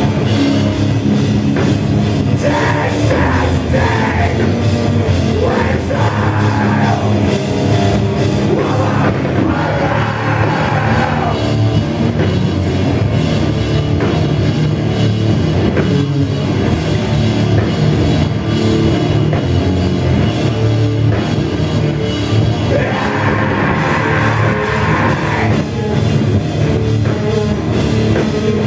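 A heavy rock band plays live and loud, heard from the audience: electric guitars, bass guitar and drum kit in a dense, continuous wall of sound. A voice sings or shouts in a few short passages.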